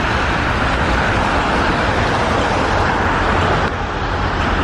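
Steady street traffic on a wet road: car tyres hissing on the wet asphalt, with a tram rolling through the junction.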